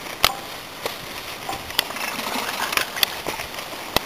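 Skis hissing steadily over groomed snow while being towed up a drag lift, with a few sharp, irregular clicks, the loudest just after the start and at the end.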